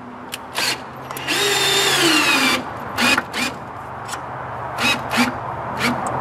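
Power drill driving a wood screw into a pine 2x4 for about a second, its whine dropping in pitch as the screw bites in. Several sharp clicks and knocks come before and after it.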